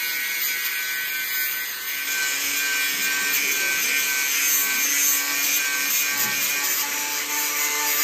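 Electric angle grinder running steadily, its abrasive disc grinding painted steel: a continuous whine with a grinding hiss.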